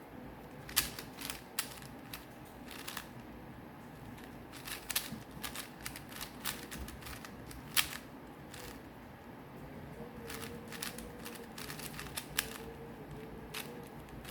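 4x4 Rubik's Cube being turned by hand, its plastic layers giving irregular clicks and clacks in quick flurries with short pauses.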